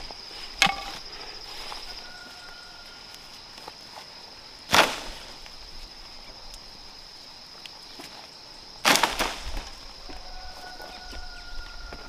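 Three chopping strikes on wood a few seconds apart, the second and third the loudest, the last followed by a brief clatter, over a steady high insect drone.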